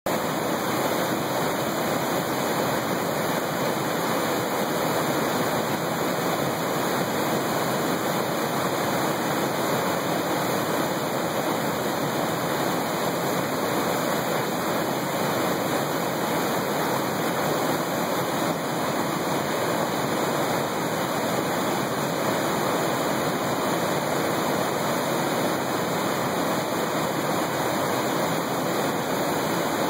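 Steady roar of whitewater pouring over a river waterfall, with no change in level throughout.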